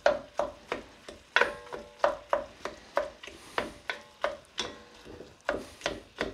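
Wooden spoon knocking against the side and bottom of an enamelled casserole pot while soft roast pumpkin is mashed in it, about three knocks a second, each ringing briefly.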